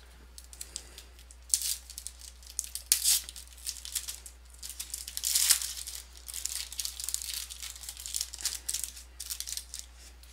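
Foil trading-card pack wrapper being torn open and crinkled by hand, a run of irregular crackles with sharper rips about one and a half, three and five seconds in.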